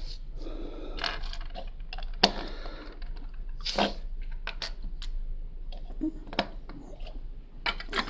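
Small plastic Lego pieces clicking and clattering as they are handled and pressed together: scattered sharp clicks with a few short rustles, over a low steady hum.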